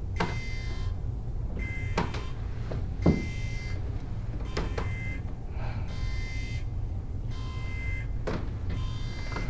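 Spaceship emergency alarm sounding over and over, a pulsing tone about every second and a half, over a steady low rumble. Sharp metallic clanks come now and then, the loudest about three seconds in.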